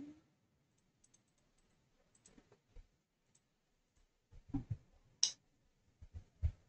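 Faint, scattered computer clicks as values are entered into an on-screen scientific calculator emulator, with a cluster of louder clicks and knocks from about halfway through.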